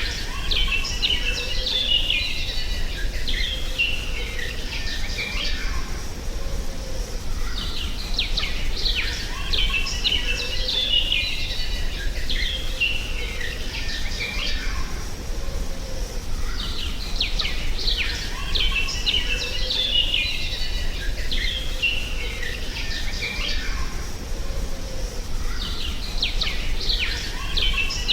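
Birds chirping and twittering in bursts that return about every nine seconds, over a steady low rumble.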